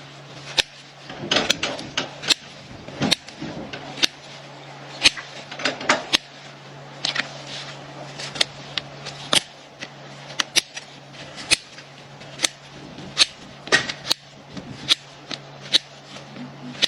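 Farrier's hoof trimming tools working on a horse's hoof: irregular sharp snips and clicks, about one or two a second, over a steady low hum.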